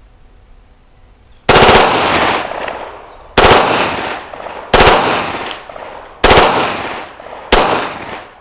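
Grand Power K105 full-auto pistol firing five short controlled bursts, the first about a second and a half in, then roughly every second and a half. Each burst is a quick string of shots followed by an echo that dies away.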